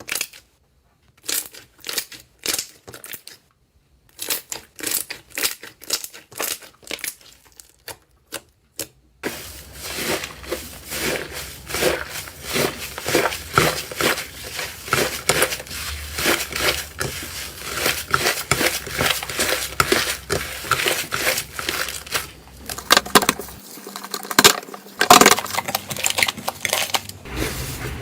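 Slime being handled and squeezed, crackling and popping. For about the first nine seconds there are separate sharp crackles with short silent gaps; then the sound turns into dense, continuous crackling.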